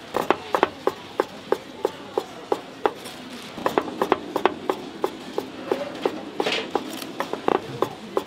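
Knife chopping on a cutting board, in a quick even rhythm of about three to four strokes a second that gets a little faster partway through.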